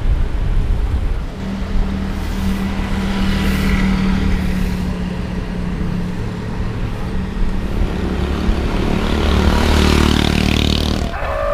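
Road traffic heard from a moving bicycle: a motor vehicle engine hums steadily, and the sound swells near the end as a motorcycle draws alongside.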